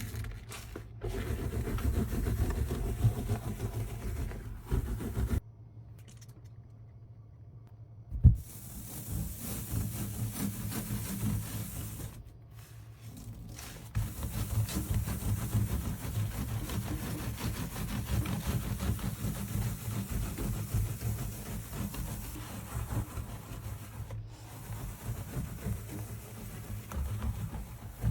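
Sponge scrubbing a soapy kitchen sink: rubbing and scraping in stretches that stop and start abruptly, with one sharp knock about eight seconds in.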